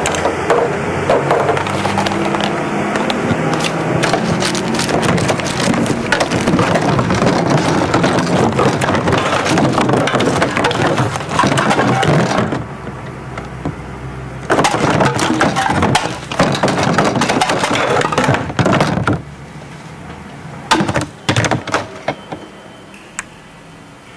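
Recyclable packaging waste being crumpled and crushed by hand, a dense crackling that breaks off about halfway through. It returns as one more long burst and then a few short crackles and sharp clicks.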